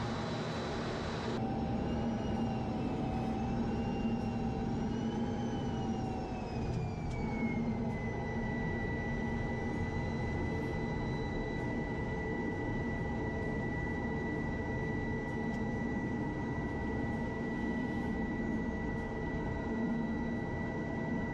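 Jet aircraft engine running with a steady rush and low hum. Its high turbine whine wavers, then falls in pitch about six to eight seconds in and holds steady after that.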